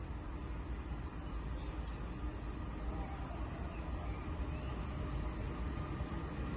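Crickets chirping steadily in a high, even band, over a low rumble from an approaching electric freight train that grows slightly louder toward the end.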